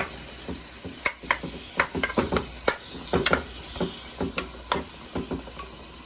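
Diced, marinated chicken thighs sizzling in hot oil in a pot as they are browned, with irregular sharp clicks and knocks against the pot through most of it.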